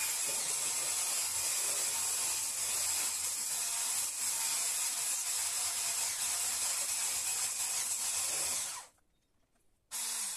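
Electric stick blender with a whisk attachment running steadily as it whisks a thick lime pie filling in a stainless steel bowl. It stops about nine seconds in, then runs again in one short burst near the end and winds down with a falling pitch.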